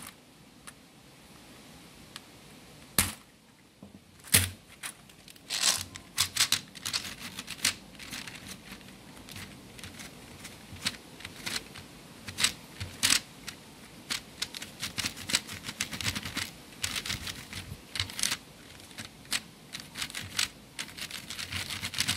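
Plastic keys of a computer keyboard clicking and clacking irregularly as hands and a cloth rag are worked over them, in quick uneven runs of sharp taps.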